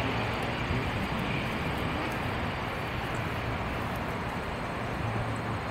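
Jet airliner engine noise: a steady, even rushing sound with a constant low hum underneath.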